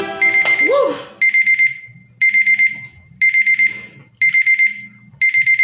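Digital timer alarm going off, a high beep in groups of about four quick pulses repeating about once a second, marking the end of the six-minute challenge time.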